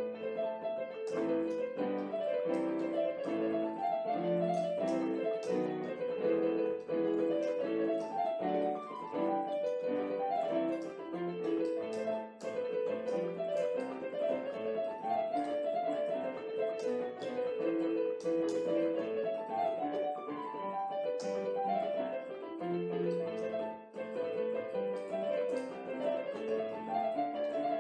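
Background piano music: a steady run of notes played as a continuous melody.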